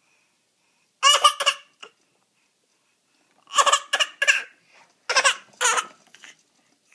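A high-pitched voice making short, clipped vocal bursts in three clusters: two about a second in, three around three and a half seconds, and two around five seconds.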